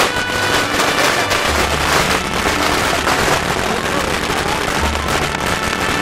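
A string of celebration firecrackers going off in a rapid, continuous crackle, with festive music underneath.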